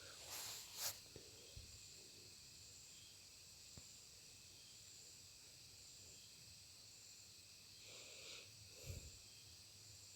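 Near silence: room tone, with two faint brief rustles, one near the start and one near the end, and a soft knock near the end.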